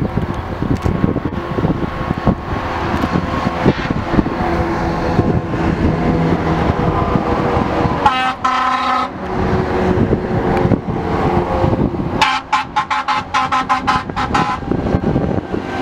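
Eight-wheeled airport crash tender driving past with heavy engine and tyre noise. It sounds its horn once, briefly, about eight seconds in, then again in a rapid series of pulsing blasts for about two seconds near the end.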